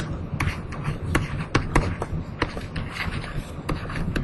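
Irregular sharp clicks and knocks, several a second, over a steady low rumble of room noise.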